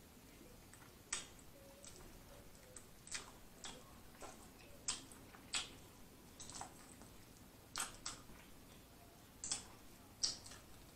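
Close-miked eating of barbecue ribs: about a dozen sharp, wet lip smacks and mouth clicks at irregular intervals as meat is chewed off the bone, with fingers sucked clean of sauce near the end.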